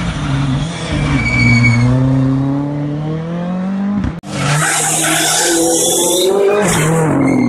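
Ford Fiesta R5 rally car's turbocharged four-cylinder engine pulling hard, its pitch rising steadily. After an abrupt cut about four seconds in, the engine runs at high revs with a loud hiss of tyres scrubbing and squealing through a hairpin.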